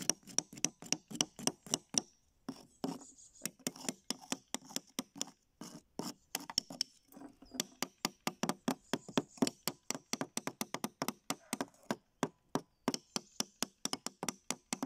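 Small hammers tapping steel chisels into a plaster fossil-dig block: rapid, irregular sharp taps, several a second, from two people striking at once, with two brief pauses.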